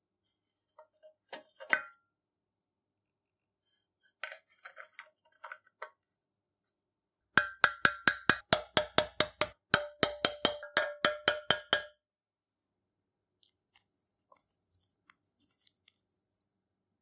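Hammer tapping a steel pin punch in a quick run of about twenty ringing metal strikes, roughly five a second, peening a part inside the cast aluminium lamp housing to lock it in place. Before the strikes there are a few light clinks of small metal parts being handled, and faint clicks near the end.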